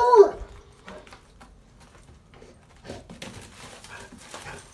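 A hound's bay ends just as the sound begins; from about three seconds in comes the scratchy, scattered noise of the hound digging in dry dirt with its paws.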